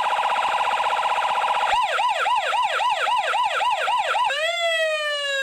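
Electronic emergency-vehicle siren in the American style switching modes: a very fast warble, then about a second and a half in a yelp of quick up-and-down sweeps about three or four a second, then near the end a single wail that rises briefly and falls before cutting off suddenly.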